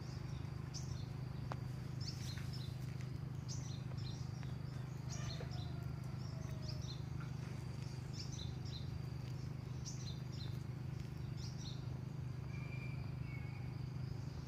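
Birds chirping in many short, repeated calls over a thin steady insect whine, with a steady low background rumble throughout.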